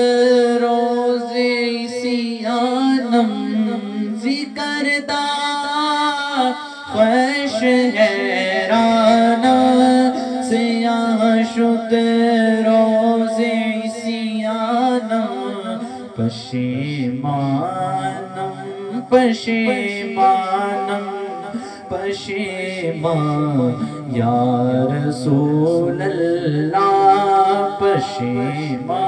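Wordless vocal interlude of a naat: a male voice sings a slow melody without lyrics over layered backing vocals. A lower humming line joins about sixteen seconds in.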